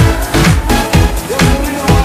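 Electronic dance music with a steady, fast beat, about three kick-drum hits a second.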